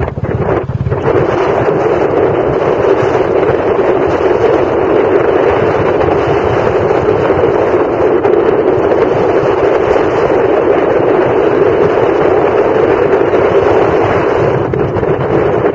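Steady, loud wind rush on the microphone of a camera riding on a moving motorcycle, with a few brief dips in the first second.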